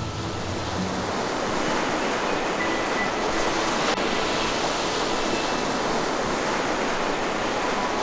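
Storm at sea: a steady, dense rush of breaking waves and wind.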